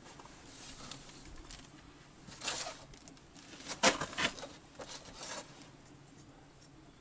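A few short rustling, scraping handling noises, the loudest a cluster about four seconds in, typical of beehives and their coverings being shifted and carried.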